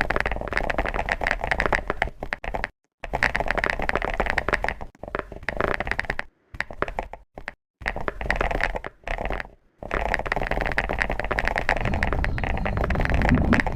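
Close-up crackling and crunching of chocolate, a dense run of fast clicks, in several short segments that cut off abruptly into dead silence and start again.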